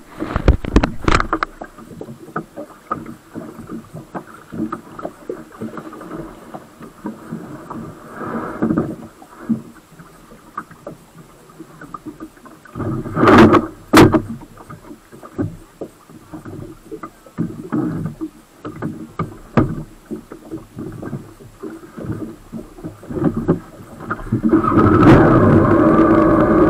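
Water splashing and slapping against a waverunner-mounted action camera sitting low at the waterline, with knocks as a finger handles the camera at the start and two loud thumps about halfway through. Near the end the waverunner's engine throttles up and settles into a steady run.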